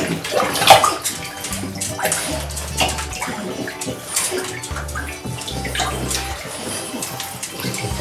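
Bath water sloshing and splashing in a bathtub as French bulldogs move about in it, with a sharper splash about a second in.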